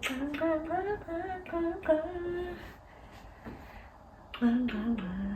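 A woman humming a short sing-song phrase whose pitch rises and falls over about two and a half seconds. After a pause, a shorter hummed sound falls in pitch near the end.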